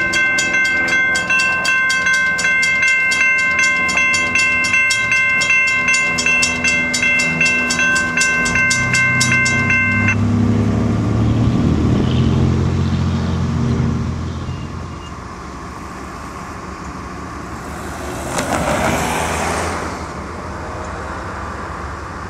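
Railroad crossing bell ringing rapidly while the gate arms lower, cutting off about ten seconds in once the gates are down. A low diesel locomotive engine rumble follows, then a brief rushing swell near the end.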